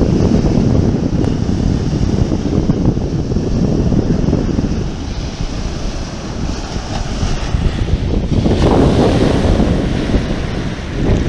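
Sea waves washing and breaking, with heavy wind buffeting the microphone. A louder rush of water comes about three-quarters of the way through.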